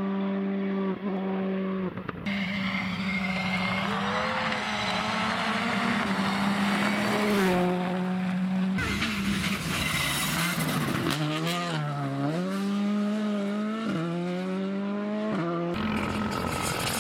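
Turbocharged four-cylinder R5 rally cars, a Citroën C3 R5 and a Škoda Fabia R5, driven flat out on a special stage. The engine note climbs and drops repeatedly as the drivers shift and lift. The sound changes abruptly twice where separate passes are cut together.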